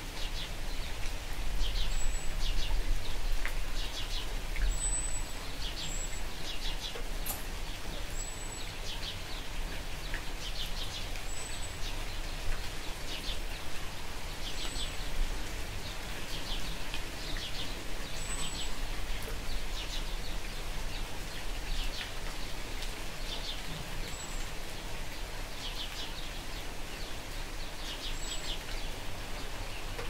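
Light rain falling steadily, with a bird chirping in short quick runs of notes every second or two and brief high peeps every few seconds.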